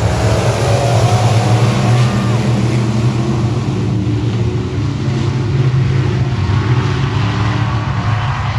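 Dirt-track race car engine running at speed, a steady low drone with fainter engine notes rising and falling above it.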